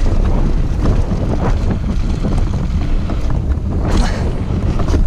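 Wind buffeting the camera's microphone as a mountain bike rolls fast down a dry dirt trail, with tyre rumble over loose gravel and frequent short knocks and rattles from the bike over bumps.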